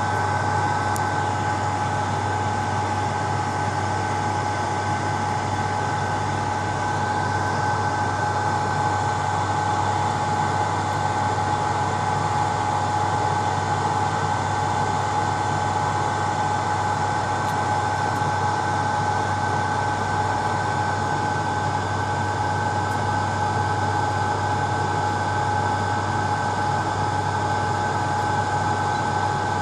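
BGA rework station running its hot-air heater blowers while heating the GPU chip: a steady fan hiss with a constant whine and a low hum.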